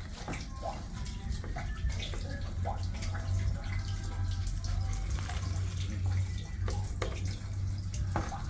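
Knife cutting through a handful of leafy greens (African spinach) held in the hand, with no cutting board: a run of soft, irregular clicking cuts over a steady low hum.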